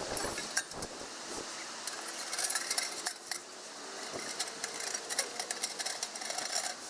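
Stainless-steel wood-stove parts being handled: chimney pipe sections and the stove body clinking and rattling against each other in many short, irregular knocks.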